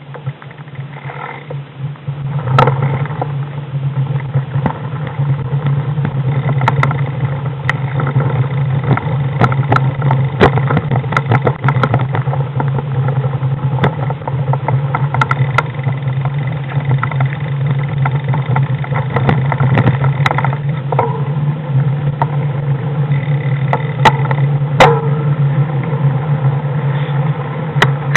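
Motorcycle engine running steadily as the bike rides along, getting louder over the first few seconds. Scattered clicks and knocks are heard throughout.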